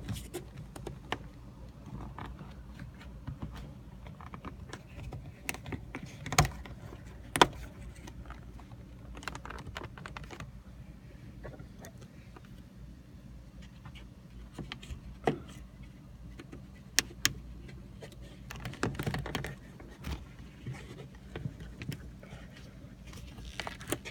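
Scattered small plastic clicks, taps and rustles of hands working a zip tie around the hinge bracket of a 2009 Hyundai Elantra's broken sun visor, with a few sharper clicks along the way.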